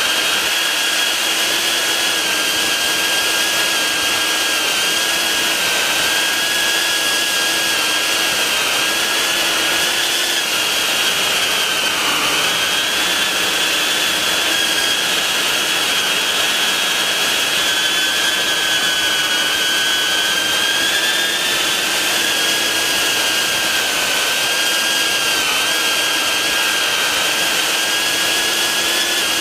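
Beta95X V3 FPV quadcopter's brushless motors and propellers whining steadily, heard from the camera on board, the pitch wavering slightly as the throttle changes, with a brief dip about twelve seconds in.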